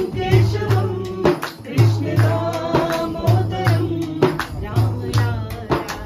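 Live singing accompanied by a hand-played large frame drum: deep drum strokes fall in pairs at a steady beat, with sharper strikes between them.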